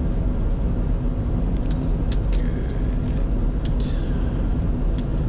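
Steady cockpit noise of a Bombardier Challenger 605 on final approach with the landing gear down: a low rumble of airflow and engines with a steady hum, and a few short clicks.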